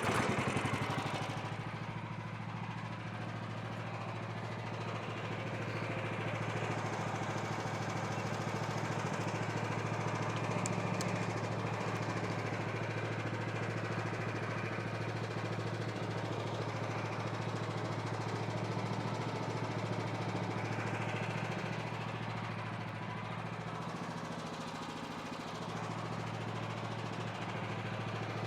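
A small engine running steadily, a little louder through the middle stretch and easing off near the end.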